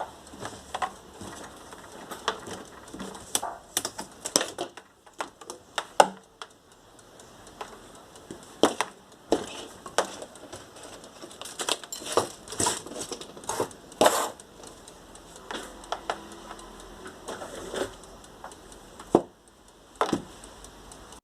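Irregular clicks, taps and knocks of hard objects being handled, coming in uneven clusters with short pauses, over a low background hiss.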